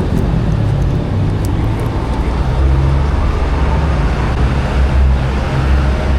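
Motorcycle engine idling steadily through an aftermarket V-Max exhaust canister, a low rumble that grows louder about two and a half seconds in.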